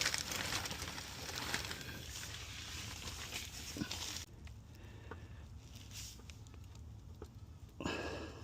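Used engine oil pouring from the drain hole into a drain pan, a steady splashing hiss with a few small knocks, which falls away about four seconds in.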